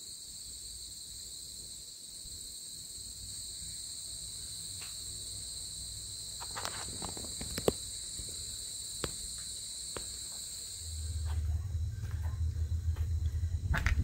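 Steady high trilling of an insect chorus that cuts off about eleven seconds in, with scattered light clicks and knocks. Near the end a low rumble comes in and grows louder.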